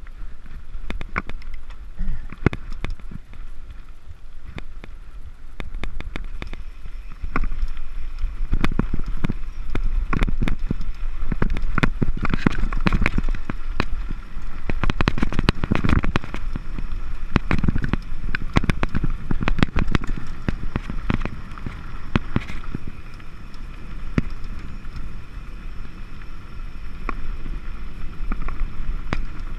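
Mountain bike riding fast down a loose dirt and gravel trail: tyres crunching over stones and the bike rattling with many sharp clicks and knocks, over a low wind rumble on the microphone. It gets louder about seven seconds in as the speed picks up.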